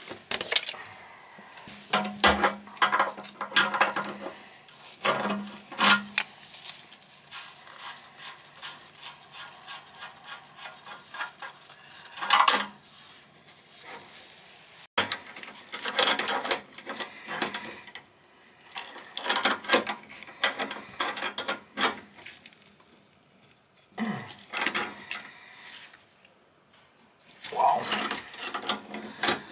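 Metal clicking and rattling in short bursts as the supply-line nut at a chrome angle-stop valve under a toilet is worked loose, disconnecting the toilet's water supply. The bursts come about a dozen times, with quieter ticking between.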